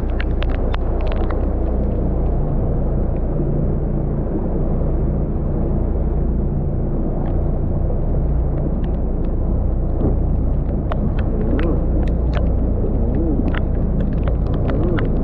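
Rain with a steady low rumble underneath and scattered sharp ticks of raindrops striking close by, thicker at the start and again in the second half.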